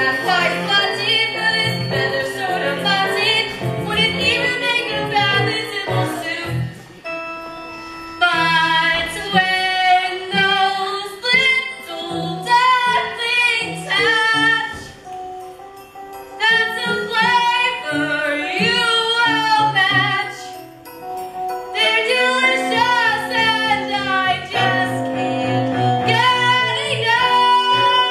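Female voices singing a song from a stage musical, with instrumental accompaniment, in phrases separated by short pauses.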